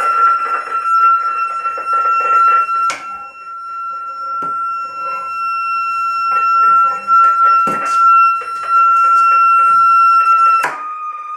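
Synthesizer built into a katana sounding one steady electronic tone with overtones, with a few sharp knocks as the sword is handled. Near the end a loud click comes and the tone steps down a little in pitch.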